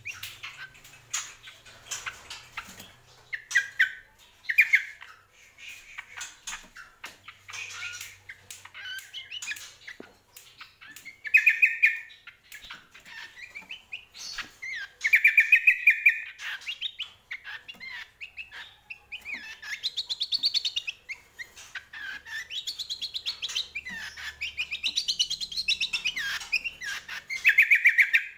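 Cucak kombo, a spiderhunter, singing: bursts of rapid sharp chirps and trills, with loud repeated phrases over and over.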